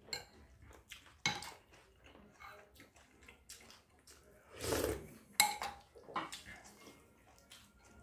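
Scattered clinks and scrapes of a metal spoon against a ceramic rice bowl during eating, a few sharp clicks among them, and a louder short noisy burst nearly five seconds in.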